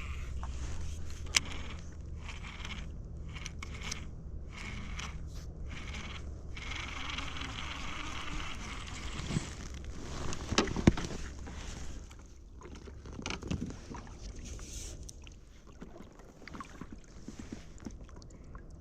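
Small on-the-water handling sounds from a fishing kayak: water and scraping against the hull over a steady low rumble, with a few sharp knocks, the loudest about eleven seconds in.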